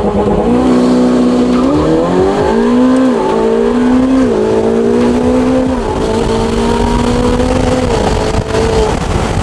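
Modified Ferrari 488 Pista's twin-turbo V8, with a Novitec exhaust, pulling hard from a launch. Its pitch climbs and then drops sharply at quick dual-clutch upshifts about three and four and a half seconds in. It then holds a steady drone before easing off near the end.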